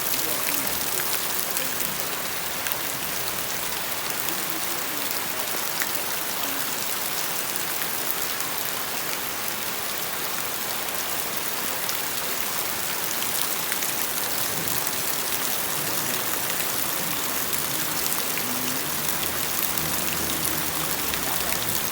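Steady rain: an even hiss of falling rain with individual drops ticking through it.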